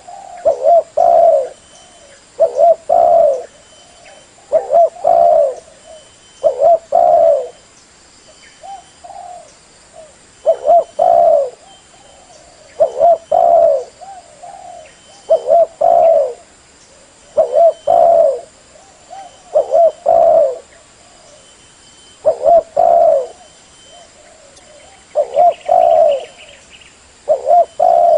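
Spotted dove cooing: short phrases of two or three low coos, repeated about every two seconds. It is the male's territorial call, used as a lure call to draw wild doves in dove trapping.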